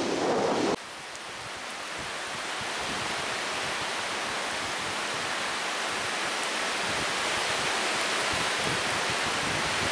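Strong wind rushing steadily through the trees, an even hiss that swells up just after a brief buffet of wind on the microphone cuts off under a second in.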